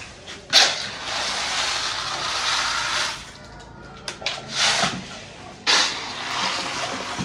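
Wet beans and water poured from a plastic bowl into a large aluminium cooking pot of water, splashing. There are two long pours, each starting suddenly, and a shorter splash between them as the bowl is refilled in the basin.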